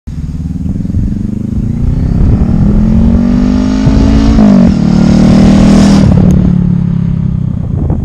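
Motorcycle engine accelerating hard, its pitch climbing for a few seconds, dropping at a gear change about four and a half seconds in, then pulling steadily again.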